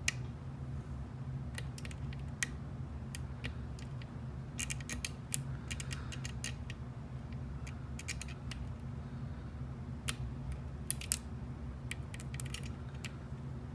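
Slider pick working the sliders inside a Yale Superior dimple lock: scattered small metallic clicks and taps, some in quick clusters, over a steady low hum.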